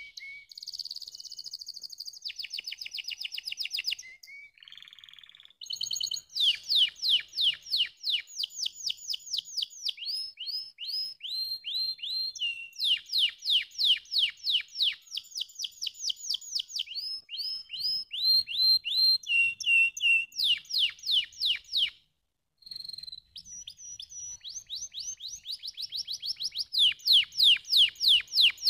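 Domestic canary singing a long, high-pitched song of fast trills and runs of rapidly repeated notes, each run changing to a new note type every second or two, with a brief pause about three-quarters of the way through.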